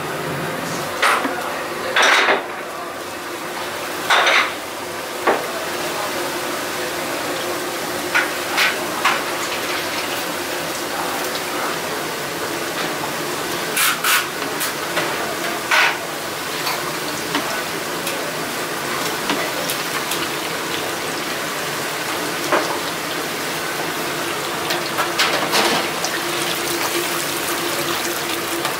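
Breaded pig's trotters deep-frying in a commercial fryer, the oil bubbling with a steady sizzle, broken by scattered clanks and clinks of metal kitchenware.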